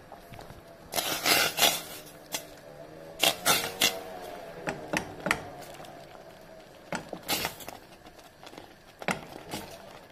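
Wooden spatula stirring thick millet-flour paste in a stainless steel pot, knocking and scraping against the pot's sides in irregular clusters of sharp clicks.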